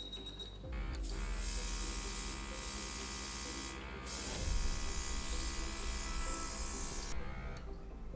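Mini airbrush compressor switching on about a second in and running with a steady electric buzz while air hisses out of the airbrush nozzle. The sound cuts out briefly a little before the middle, then drops away shortly before the end.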